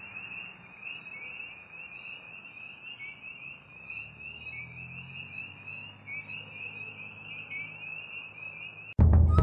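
A high-pitched chorus of calling animals, a steady trill pulsing several times a second over a faint low hum. Loud music with timpani cuts in suddenly near the end.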